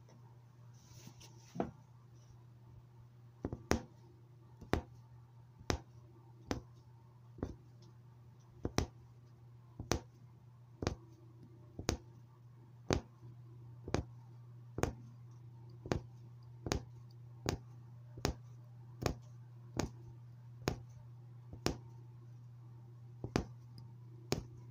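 Punch needle stabbing through fabric stretched taut in an embroidery hoop, one sharp tap per stitch at about one a second, as a thread outline is punched in. A low steady hum runs underneath.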